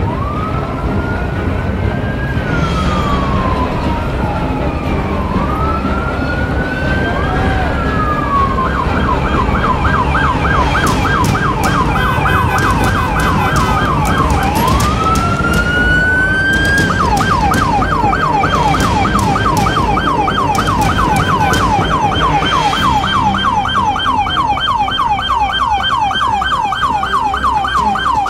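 An emergency vehicle siren running through its modes: a slow wail rising and falling, switching to a fast yelp about eight seconds in, returning briefly to the wail, then holding the fast yelp through the second half, over low traffic rumble.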